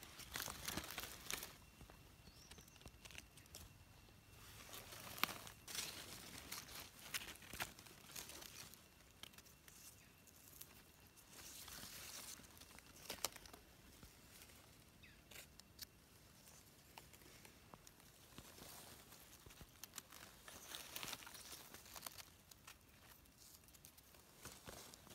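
Faint, irregular rustling and crackling of dry leaf litter and hand-handling noise as a wild mushroom is picked and trimmed with a knife, with a few sharp clicks.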